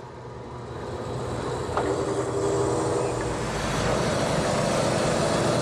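High-pressure sewer jetting and vacuum truck's engine and pump running, a steady low drone that grows louder over the first couple of seconds, with a steady-pitched hum joining in about two seconds in.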